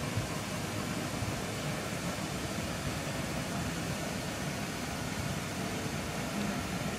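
Steady room noise, an even hum and hiss like air conditioning or ventilation, with no distinct events.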